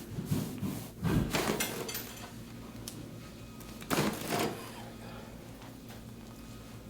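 Short bursts of rustling and sliding on a padded chiropractic treatment table as a patient's legs are pulled: one about a second in and another about four seconds in.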